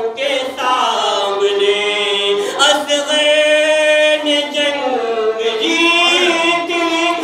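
A man's voice chanting devotional verse in a drawn-out melody into a microphone, with long held notes, one sustained for about two seconds mid-phrase.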